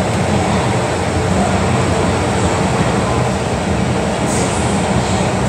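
MTR Kwun Tong line M-Train, a Metro-Cammell electric multiple unit, running through an underground tunnel: a steady, loud rumble of wheels on rail and running gear.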